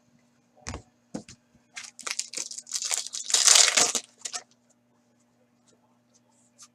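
Foil wrapper of a hockey card pack crinkling and tearing as it is opened, loudest about three and a half seconds in, after a few short clicks of cards being handled.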